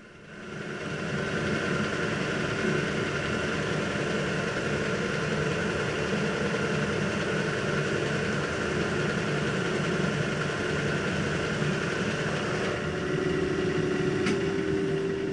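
Kearney & Trecker horizontal mill running with the spindle engaged: the drive and the gears of the universal milling head turn steadily under a trickle of cutting oil. The sound comes up over the first second and then holds steady. A steady hum joins near the end, with a single sharp click shortly before it stops.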